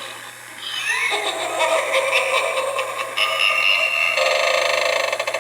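Dasini animated eyeball doorbell (a knockoff of Gemmy's) playing one of its spooky sound effects through its small built-in speaker. It starts about a second in with a rising squeal, then runs on as a dense, pulsing electronic tune that turns into a rapid warble near the end.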